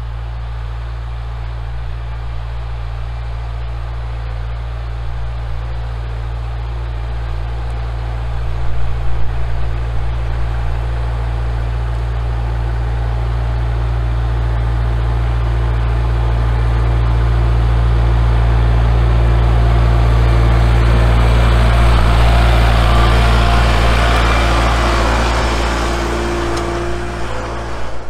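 Kubota L4701 compact tractor's diesel engine running steadily as the tractor drives slowly closer, growing louder until it passes about three quarters of the way in, then easing off.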